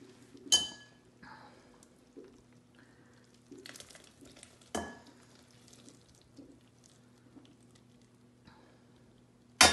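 Stainless steel colander knocking against a ceramic bowl twice, about half a second in and again near five seconds, the first knock ringing briefly. Between the knocks, cooked macaroni slides softly out of the colander into the bowl.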